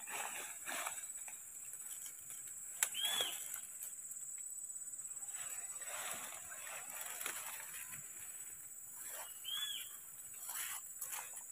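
Leaves and fern stems rustling and snapping as fern fronds are picked by hand in dense undergrowth. Two short, high calls rise and fall, about three seconds in and again near the end.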